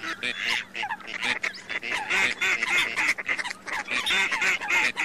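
A chorus of ducks and water hens calling, many short calls overlapping several times a second without a break.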